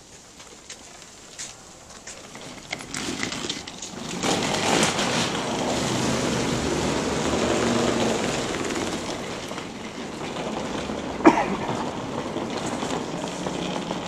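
Wheeled suitcases rolling across the floor, a steady rumble that swells a few seconds in and then eases, with a single sharp knock about eleven seconds in.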